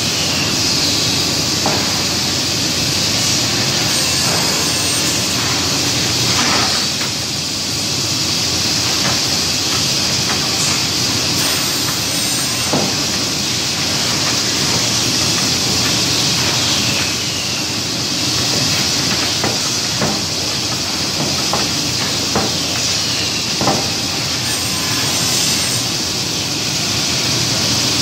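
Steady hiss of machinery running in a woodworking factory, with scattered light knocks of solid-wood strips being laid and tapped into place on the machine's feed table.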